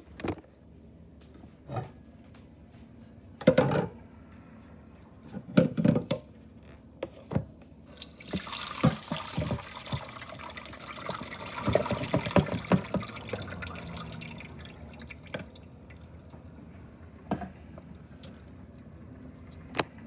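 A few clunks and knocks of a bowl and strainer being handled, then about eight seconds in, water pouring and splashing into a sink for several seconds, thinning to trickles and drips: the noodles' cooking water being drained through a strainer.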